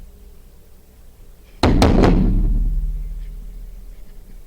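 A single loud thud, like something heavy set or dropped down hard, about a second and a half in, followed by a low rumble that dies away over the next two seconds.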